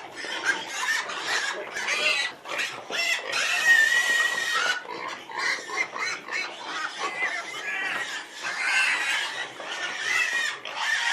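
Many pigs squealing and calling at once in a dense, unbroken din.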